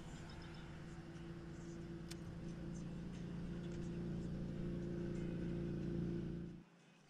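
A steady, low-pitched motor hum that grows a little louder, then cuts off suddenly about six and a half seconds in. A few faint ticks sound over it.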